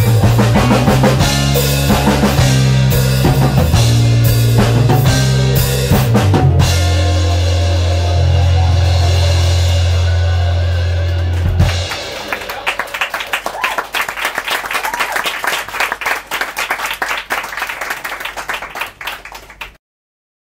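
Live band of piano, bass guitar, drum kit and electric guitar playing the closing bars of a rock song, with strong held bass notes. About halfway through, the bass drops out and a fast, even rhythm carries on, fading away and cutting off shortly before the end.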